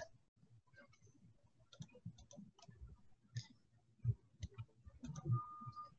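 Faint, scattered clicks of a computer mouse and keyboard. Near the end there is a brief steady beep.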